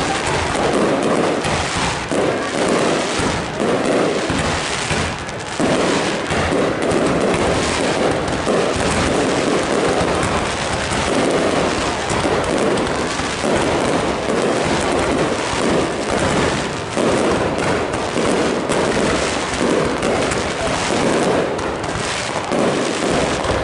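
Fireworks display at close range: a dense, unbroken barrage of bursts and crackling.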